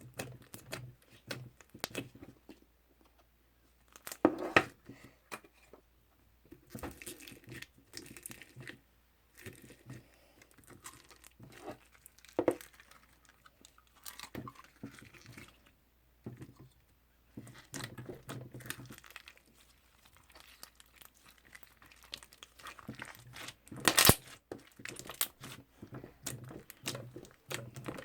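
Hands playing with toffee slime: stretching, folding and pressing it, with irregular sticky crackles, clicks and tearing sounds. There is a louder burst near the end.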